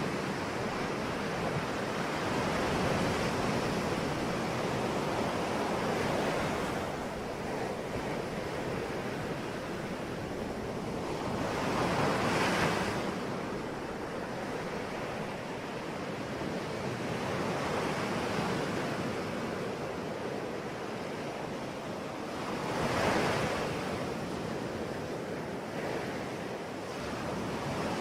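Sea waves washing on a shore: a continuous rush of surf that swells and ebbs, with two louder breaking waves, one near the middle and one near the end.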